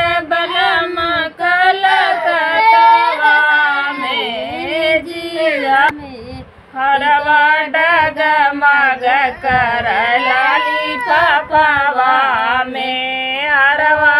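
A woman's voice singing a Bhojpuri folk song, with a brief break about six seconds in.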